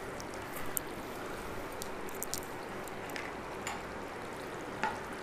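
Rice cooking at the boil in a large lidded steel pot on a gas stove: a steady watery hiss, with a few faint clicks.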